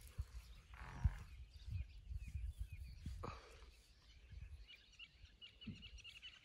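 Faint outdoor ambience: small birds chirping in quick high notes in the second half, over low, irregular rumbling bumps and a couple of soft rustling swells.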